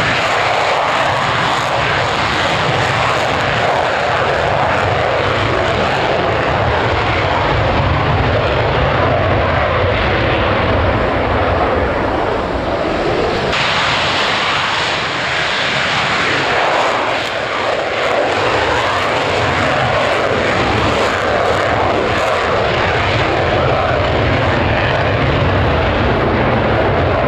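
Eurofighter Typhoon fighter jet's engines running at high power on the take-off roll: a loud, continuous jet noise that turns brighter and harsher about halfway through, as the jet accelerates down the runway and lifts off near the end.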